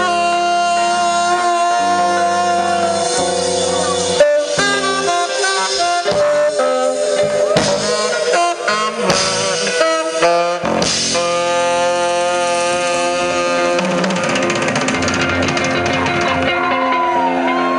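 Live funk-jazz band playing instrumental music: electric guitars, keyboards and drum kit over a steady groove. There is a sharp accented hit about four seconds in, a choppy stretch of short stabs a few seconds later, then long held chords.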